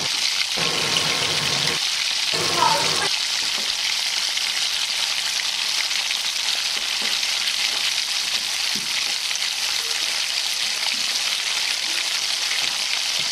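Batter-coated brinjal fritters deep-frying in hot oil in a steel pan: a steady, dense sizzle, with a spoon turning the fritters now and then.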